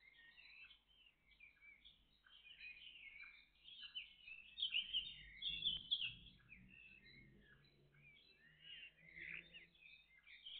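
Dawn chorus: several songbirds singing and chirping at once, many short overlapping calls, louder for a couple of seconds a little before the middle.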